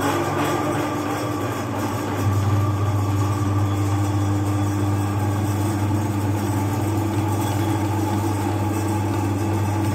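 Electric meat grinder running with a steady low motor hum as its auger forces ground chocolate bars and candy through the cutting plate. The hum gets louder about two seconds in.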